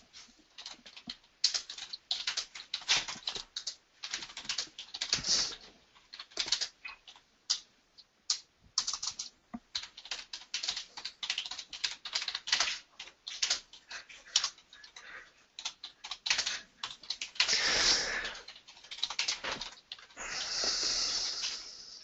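Typing on a computer keyboard: irregular clusters of quick keystrokes, with two longer hissing rustles in the last few seconds.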